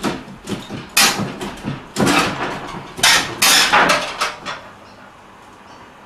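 Knocks and scrapes from a heavy air conditioner unit being shifted and slid out of its mounting: a run of sharp knocks and short scraping drags over the first four seconds or so, then it goes quiet.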